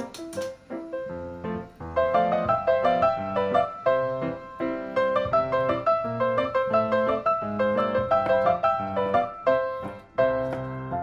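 Background piano music: a light melody of short, quick notes at a steady pace.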